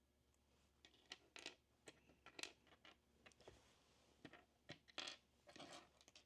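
Small plastic figure parts of a Gundam Converge Strike Gundam clicking and scraping as they are handled and pushed together, a scatter of faint short clicks.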